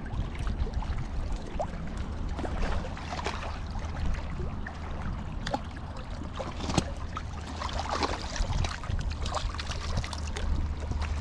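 A hooked trout splashing at the surface in shallow water, in short bursts of splashing. A steady low rumble of wind on the microphone runs underneath.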